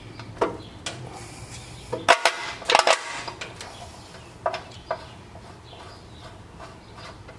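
Small steel hardware clinking under hand: a few sharp clicks and clinks as nuts and thick washers are handled and set on studded head bolts, with a cluster of them two to three seconds in.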